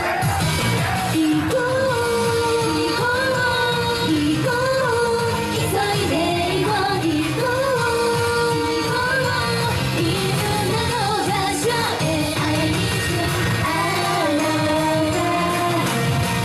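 Female J-pop idol group singing a pop song live over loud amplified backing music.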